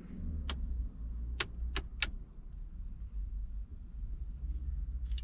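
Light stalk switch on a 2003 Iveco Daily being flicked through its positions: one sharp click, then three more in quick succession, over a steady low rumble. The switch's loose solder joints have just been resoldered and it is being tested.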